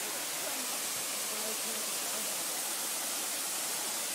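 Small waterfall rushing: a steady, even hiss of falling water. Faint voices murmur in the background.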